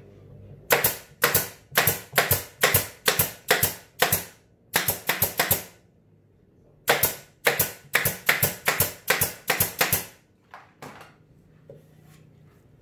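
Pneumatic nail gun firing nails into the plywood panels of a subwoofer box, a sharp shot about two to three times a second. The shots come in two runs separated by a pause of about a second, followed by a few faint knocks.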